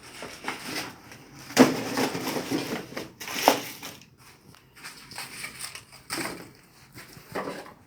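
Cardboard packaging box being handled and crushed, with irregular crackling and crunching. The loudest crunch comes about one and a half seconds in, another near three and a half seconds.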